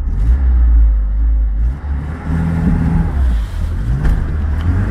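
UAZ 452 van's 2.4-litre four-cylinder petrol engine revving hard under load, heard from inside the cab as the van ploughs through deep water, with its pitch climbing a few seconds in. Water washes and splashes over the bonnet and windscreen.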